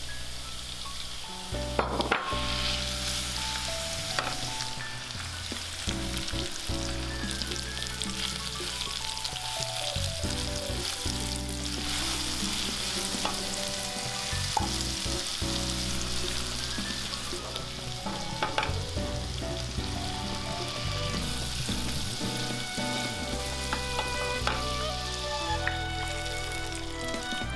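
Food sizzling in a frying pan, with a few sharp clicks of a utensil stirring against the pan, over light background music.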